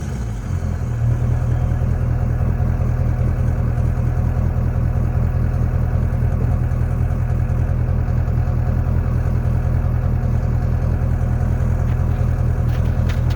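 LB7 Duramax 6.6-litre V8 turbodiesel running through a 4-inch MBRP exhaust with muffler: its revs drop back to idle in the first second, then it idles steadily.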